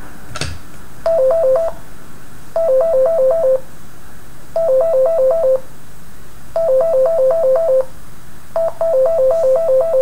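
Parallax Scribbler 2 robot's built-in speaker beeping a hi-lo two-tone pattern like an ambulance siren: short bursts of quickly alternating notes, repeating about every two seconds. The owner takes it for the robot's ambulance demo mode rather than the object-avoiding demo he selected. A single knock about half a second in.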